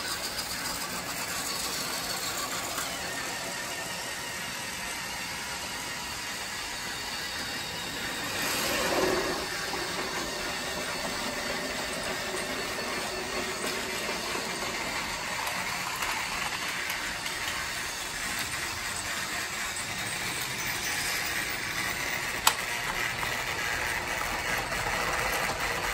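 Motorised TrackMaster toy train engine (Duck) whirring steadily as it runs along plastic track, its coaches rattling behind it. It grows louder briefly about nine seconds in, and there is a single sharp click a few seconds before the end.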